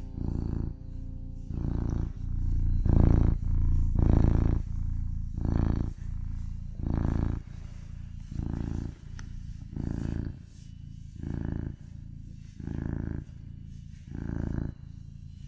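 Domestic cat purring close up, swelling and fading with each breath about every second and a half, as the end of a music track fades out in the first second.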